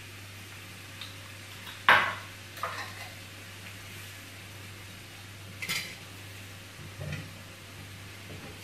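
Cooking spoon knocking and scraping against a wok while vegetables and sauce are stirred: a few separate clinks, the loudest about two seconds in, over a low steady hum.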